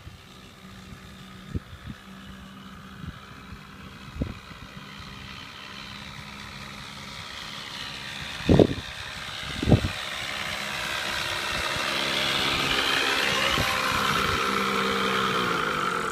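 Model airplane's O.S. .46 two-stroke glow engine running at high revs, growing louder as the plane comes closer, its pitch wavering and then dropping near the end as it passes. Two sharp thumps come about halfway through.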